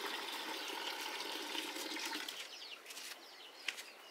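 Water poured from a metal pan into a plastic bucket, a steady splashing pour that stops about two seconds in. After it, a few short falling bird chirps and light clicks.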